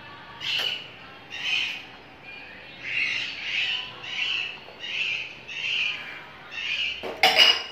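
A flock of parrots squawking: a run of about ten harsh calls, roughly two a second. Near the end there is a brief louder rustle or knock.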